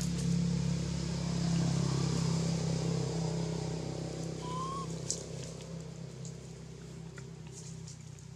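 Motor vehicle engine running with a steady low hum, loudest at first and fading away over the second half. A brief rising chirp sounds about four and a half seconds in.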